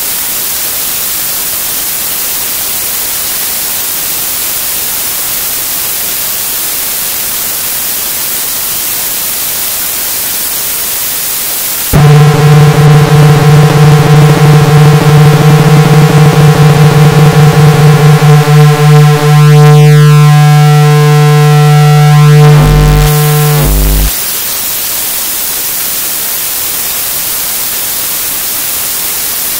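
Experimental electronic noise music: a steady static hiss, broken about twelve seconds in by a loud buzzing electronic tone with many overtones. The tone pulses rapidly, about three or four times a second and getting faster, then holds with a few falling glides, and cuts off abruptly about twenty-four seconds in, leaving the hiss.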